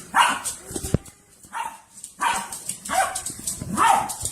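A dog barking repeatedly: about five short barks, a little under a second apart.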